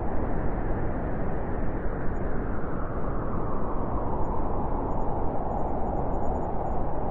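Blizzard wind blowing steadily as a dense, low rushing noise without breaks.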